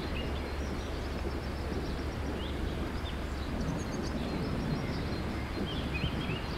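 Thunderstorm ambience: a steady low rumble of wind and distant thunder, with a few short, high bird chirps scattered through it.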